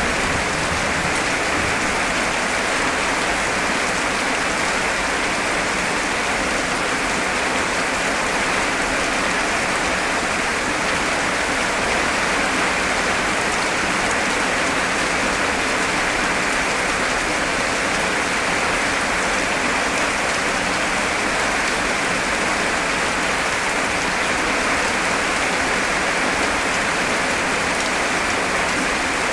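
Heavy rain hammering down in a steady, even downpour.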